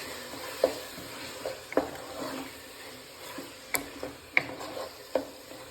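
Biryani masala gravy sizzling in a pot while a spoon stirs it, clinking sharply against the vessel several times.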